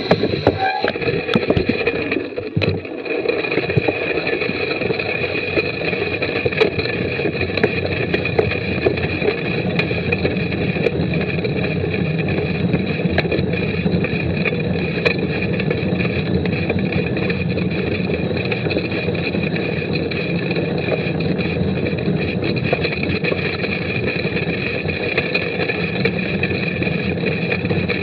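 A mountain bike ridden over a wet dirt trail, heard from a camera riding on it: a steady rush of wind and tyre noise, with many small rattles and clicks as the bike runs over the ground.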